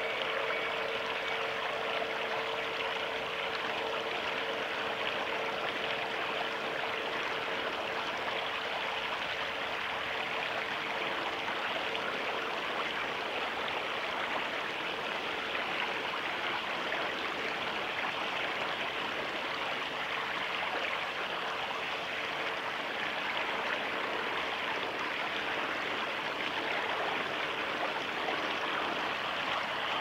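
A small stream's water running steadily, an even rushing sound without breaks.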